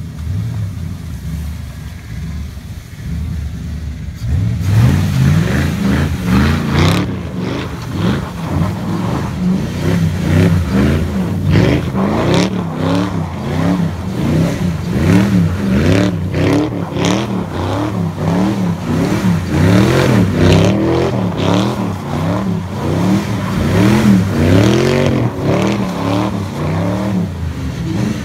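Fox-body Ford Mustang engine idling, then from about four seconds in revving up and down over and over, about once a second, as the car spins donuts in the snow.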